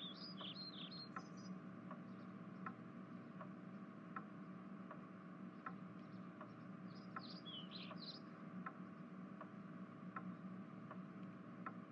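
Faint background ambience: a light, regular ticking about every three-quarters of a second over a low steady hum, with birds chirping briefly near the start and again about seven to eight seconds in.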